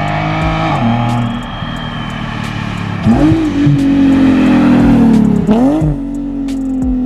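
Nissan 370Z's 3.7-litre V6 with a loud aftermarket exhaust accelerating past. The engine note climbs sharply twice and is loudest about three to six seconds in.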